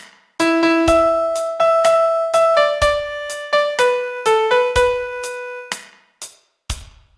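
Piano playing a slow single-note melody that steps mostly downward, each note sustained, over a low thump about every two seconds.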